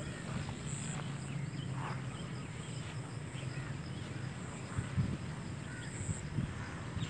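Outdoor ambience: a steady low rumble on the microphone, with faint scattered animal chirps.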